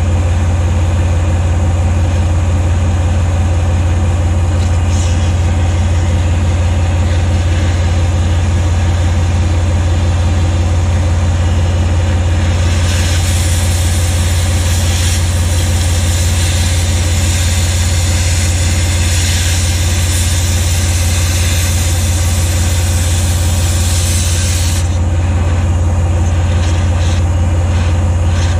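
An engine idling steadily with a deep hum. About thirteen seconds in, an oxy-fuel cutting torch adds a loud hiss as it cuts steel; the hiss lasts about twelve seconds and stops.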